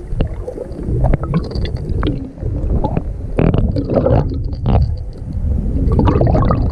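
Water sloshing and gurgling with a low rumble, broken by irregular small splashes.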